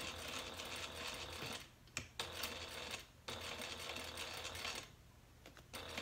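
Juki sewing machine stitching through vinyl in three short runs with brief stops between them, then falling quiet near the end.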